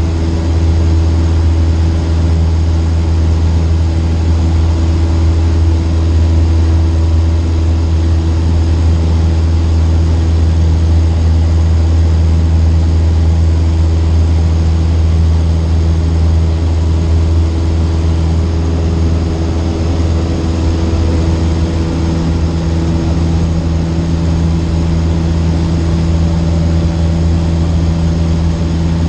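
Cessna 152's four-cylinder Lycoming piston engine and propeller running at a steady cruise power, a continuous low drone with a steady hum above it. The level dips slightly about two-thirds through, then steadies again.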